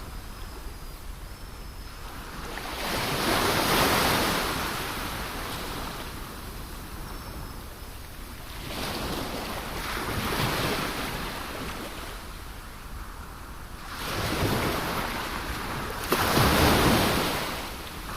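Ocean waves breaking and washing in, four swells of surf in turn, the loudest near the end.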